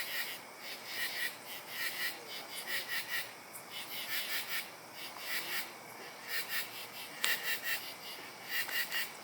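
Loud night chorus of small calling creatures: overlapping groups of rapid, high pulsed chirps repeating without a break. A single sharp click comes about two seconds before the end.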